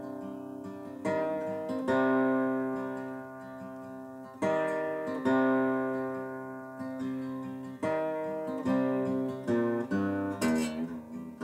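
Acoustic guitar played alone: chords strummed one at a time, each left to ring and fade before the next. Near the end the playing turns to quicker, shorter notes.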